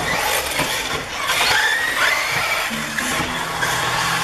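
1/8-scale off-road RC buggies racing, their motors whining and gliding up and down in pitch as they accelerate and slow through the track.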